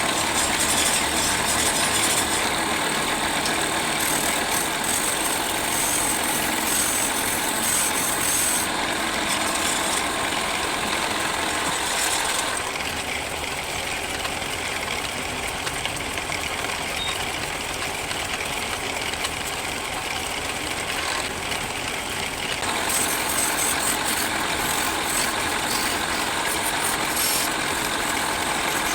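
Wood lathe motor running steadily while a wooden spinning top is turned. A higher hiss, likely the tool cutting, comes and goes: strong for the first several seconds, fainter through the middle, and back near the end.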